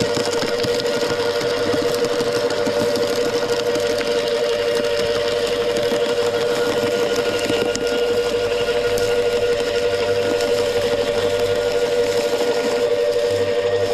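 Wood chipper running steadily with a constant hum, the level even throughout.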